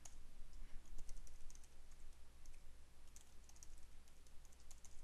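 Typing on a computer keyboard: soft, irregular keystroke clicks as a line of code is entered.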